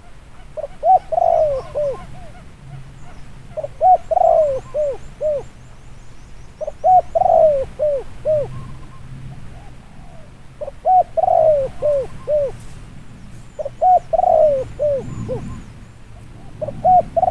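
Spotted dove cooing: six phrases in a row, one every three seconds or so, each a quick run of about five low coo notes. Faint high chirps can be heard in the background.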